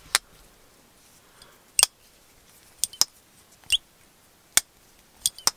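Maxace Albatross slip-joint folding knife being worked open and shut, its backspring snapping the blade into its several stops: a string of about eight sharp metallic clicks at uneven intervals, a few with a brief ring. It is the unusual knife action that listeners liken to an alien.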